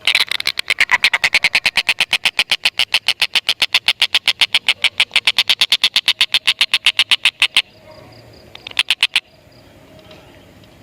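Tengkek buto kingfisher giving its long, rapid chattering 'ngekek' call, a fast even run of sharp notes that stops about seven and a half seconds in. A brief burst of a few more notes follows just before nine seconds.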